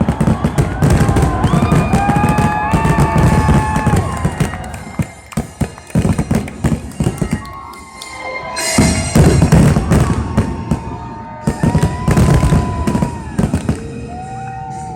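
Aerial fireworks going off in quick succession, a dense run of bangs and crackling with a brief lull in the middle.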